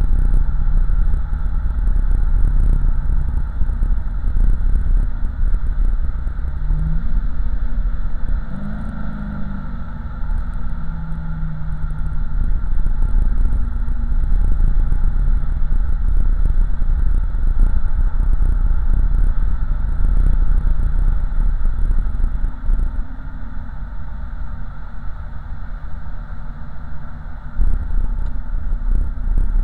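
Swapped 5.3-litre LS V8 engine and exhaust in a 1987 Oldsmobile Cutlass cruising, heard from inside the cabin as a steady low rumble with road noise. The note eases off for a few seconds late on, then comes back up near the end.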